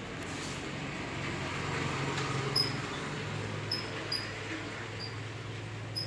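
Steady low background hum with about half a dozen short, high-pitched chirps scattered through the second half.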